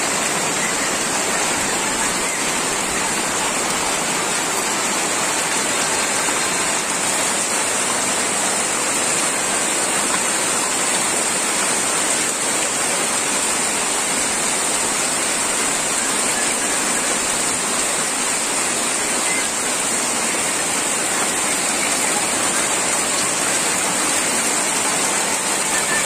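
Torrential monsoon rain pouring down steadily: a dense, even hiss with no let-up.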